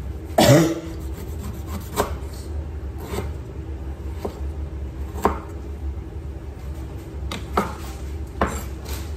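Chef's knife cutting the rind off young jackfruit pieces on a wooden chopping board: rasping cuts through the tough skin and irregular knocks of the blade on the board, about seven in all, the loudest about half a second in.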